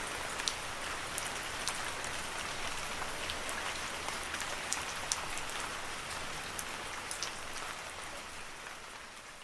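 Steady rain with scattered sharp drop ticks, slowly fading out near the end.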